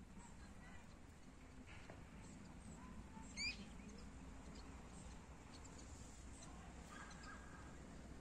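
A bird gives one short, sharp, high call about three and a half seconds in, with a few fainter chirps near the end, over a faint steady low background noise.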